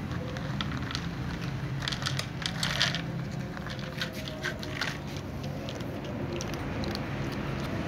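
A ginger cat crunching dry kibble, a run of irregular crisp crunches, thickest about two to three seconds in and again near five seconds, over a steady low hum.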